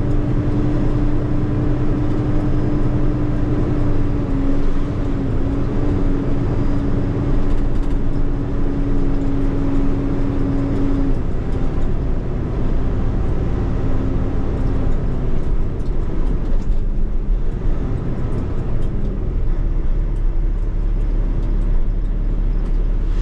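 Semi truck's diesel engine running, heard inside the cab while the truck is driven slowly. A steady low rumble carries a held hum that dips slightly about four seconds in and fades out about halfway through.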